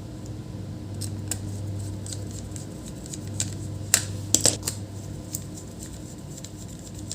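Light clicks and taps of small laptop parts and tools being handled on a bench, loudest in a quick cluster about four seconds in, over a steady low hum.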